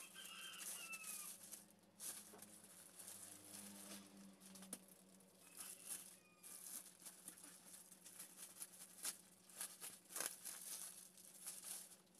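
Plastic wrapping crinkling and crackling as it is handled and pulled off a packed inflatable airbed, in short irregular bursts. A short falling animal call sounds about a second in, and a fainter one around six seconds.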